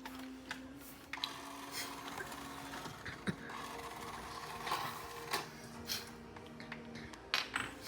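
Plastic marble-run track pieces clicking and knocking as they are handled and fitted together, a dozen or so irregular clicks, over a faint steady hum.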